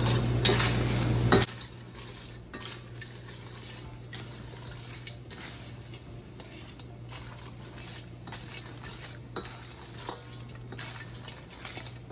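A loud steady rushing noise with a low hum cuts off suddenly about a second in. After it come scattered light clinks and knocks of dishes and utensils being handled.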